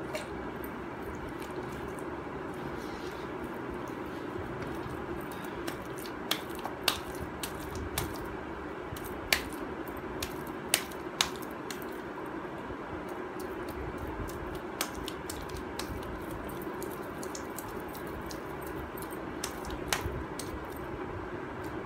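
Hands working a wet multani mitti (Fuller's earth) paste in a plastic bowl: scattered sharp clicks and taps, most of them in the middle of the stretch and a few near the end, over a steady background hum.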